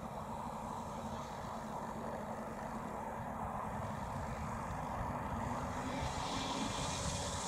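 The two Saito FG-19R3 three-cylinder petrol radial engines of a large model B-25 running at idle on the ground, a steady low rumble. About six seconds in they grow a little louder and brighter as the throttle is opened.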